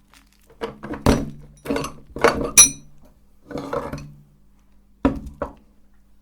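Jumbo chalk sticks cracking and grinding in a meat grinder: a run of hard, clinking crunches with a low hum under some of them, then two more sharp knocks near the end.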